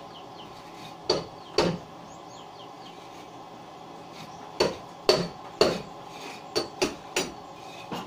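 Hard objects knocking and clattering: about eight sharp, short knocks with a brief ring. Two come a second or so in, then a quicker run in the second half.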